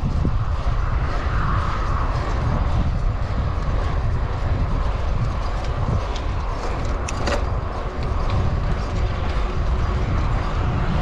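Wind rushing over the microphone of a road cyclist riding at speed, a steady low rumble of wind and road noise. A few short clicks come about seven seconds in.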